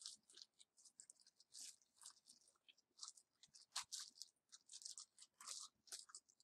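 Faint, irregular crinkling and rustling of thin plastic packaging bags being handled, in many short bursts, a little louder about four seconds in.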